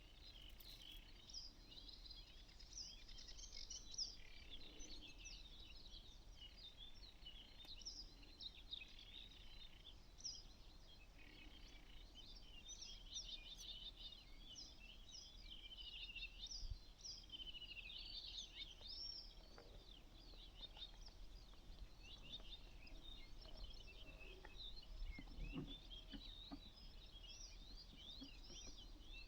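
Faint chorus of several songbirds chirping and singing at once, a dense mix of short high calls and quick rising and falling whistles.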